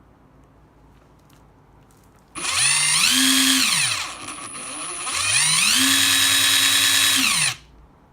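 HiKOKI WH14DDL2 cordless impact driver running free with no load, trigger pulled twice: each time the motor whine climbs in pitch, holds, and winds down on release, the second run longer than the first.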